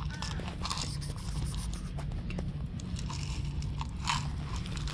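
Cat chewing dry kibble, a run of irregular crunches and clicks, one louder about four seconds in.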